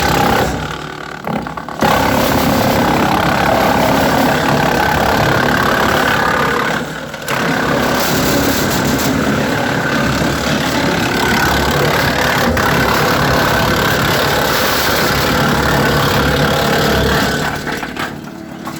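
WC 68 wood chipper, run off a 1025R compact tractor, chewing rotten limbs. It is loud and continuous over the tractor's engine, with brief lulls about a second in and around seven seconds, and it eases off near the end.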